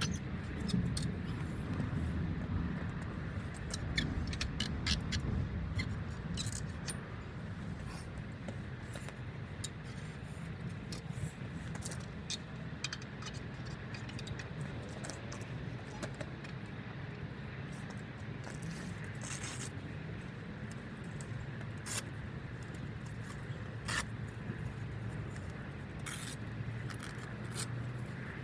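A roll-out vehicle awning being unpacked and deployed: scattered sharp clicks, rattles and scrapes of its metal poles and fittings over a steady low rumble.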